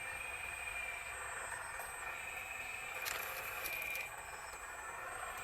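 Small electric motors and hydraulic pump of a 1/12-scale RC excavator whining steadily, with a louder scraping burst about three seconds in that lasts about a second.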